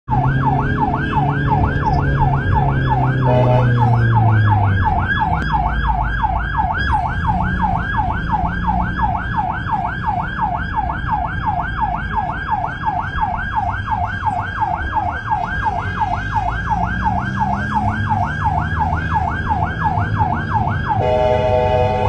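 Turkish ambulance siren in a fast yelp, a rising-and-falling wail repeating about three times a second, over a low vehicle rumble.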